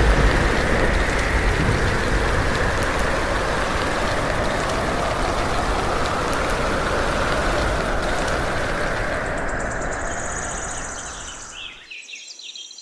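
Heavy rain pouring steadily, with a low thunder rumble at the start, fading away over the last few seconds. Bird chirps begin faintly near the end.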